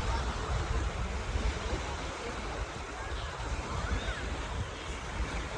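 Ocean surf washing on a beach, a steady rushing, with wind buffeting the microphone in uneven low rumbles.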